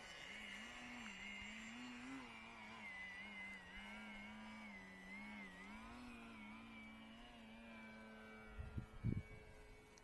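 Distant drone of a Multiplex Blizzard electric glider's brushless motor and propeller in flight, its pitch wavering up and down, then holding steady for the last few seconds. A few low thumps come near the end.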